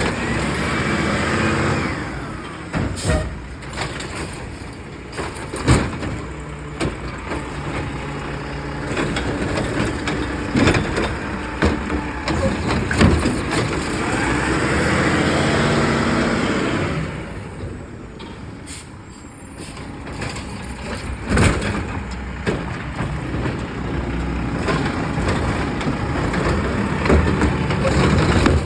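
Garbage truck working at the curb: its engine runs throughout, with scattered clunks and bangs of trash cans being handled and tipped, and air-brake hisses near the start and again about halfway through. The engine drops quieter for a couple of seconds about two-thirds of the way in.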